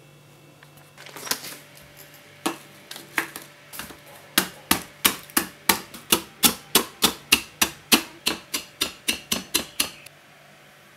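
Wooden pestle pounding Regal biscuits in a wooden bowl, crushing them to crumbs. A few uneven knocks come first, then a steady run of sharp knocks about three a second, which stops near the end.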